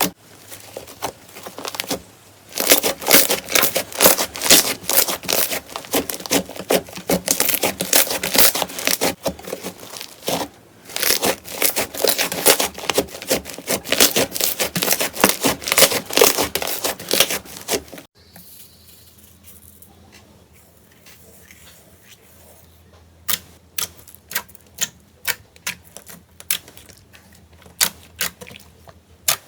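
Slime being squeezed and pressed by hand, making rapid sticky crackling and popping clicks. About two-thirds of the way through the sound changes abruptly to quieter, sparser pops.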